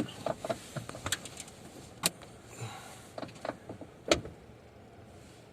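Several scattered sharp clicks and knocks inside a car cabin, the loudest about two and four seconds in, over a faint low hum.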